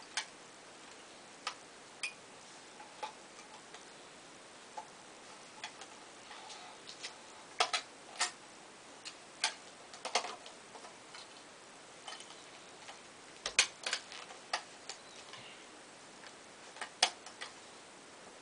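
Sharp little clicks and taps of small objects being handled, coming at uneven intervals, sometimes in quick pairs, with quiet gaps between.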